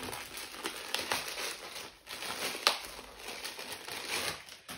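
Plastic wrapping crinkling and rustling as a folded T-shirt is unwrapped by hand, with many small crackles and one sharper snap about two and a half seconds in.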